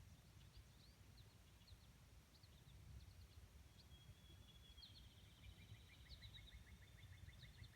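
Quiet outdoor ambience: faint bird chirps and, from about four seconds in, a rapid, even trill of bird notes, over a low rumble.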